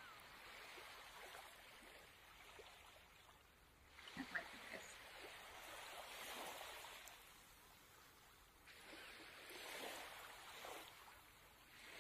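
Faint scratching of a pencil writing on paper, in a few short stretches, with a couple of light taps about four seconds in.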